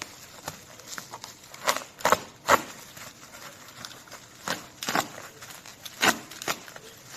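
Packaging being handled during an unboxing: irregular clicks and short crinkling rustles, a cluster of louder ones about two seconds in and more near the end.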